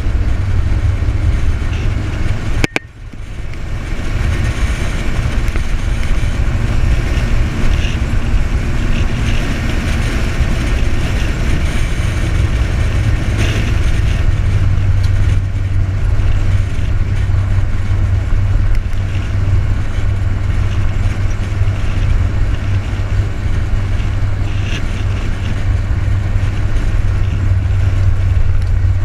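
Wind buffeting the camera's microphone over a steady low ATV engine rumble while riding. A sharp click about three seconds in, followed by a brief dip in the sound.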